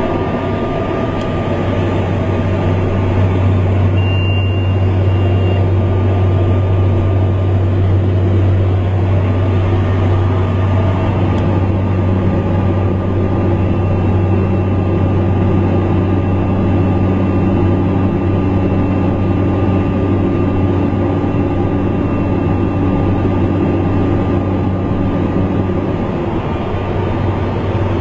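Light aircraft's piston engine and propeller droning steadily, heard inside the cabin in cruise, with a faint high steady tone coming and going.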